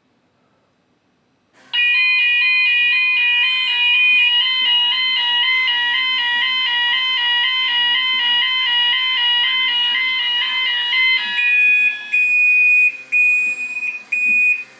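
Gent Vigilon fire alarm sounder set off by aerosol test smoke in test mode. About two seconds in, a loud alarm starts, several tones stepping back and forth in a repeating pattern. Near the end it changes to a single high beep pulsing on and off.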